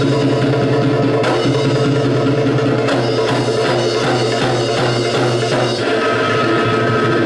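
Loud music with drums and percussion, held chords under sharp drum strokes.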